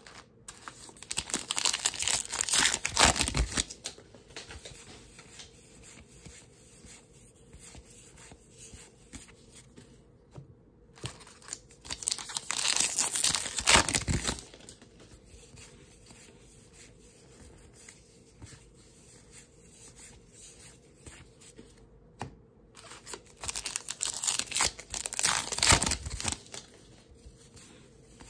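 Wrappers of 2023 Topps Heritage baseball card packs being torn open, three spells of tearing and crinkling each two to three seconds long and about ten seconds apart, with faint shuffling of cards in between.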